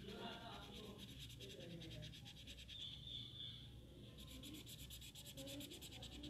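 Colored pencil scratching on paper in quick, even back-and-forth shading strokes, with a short break near the middle.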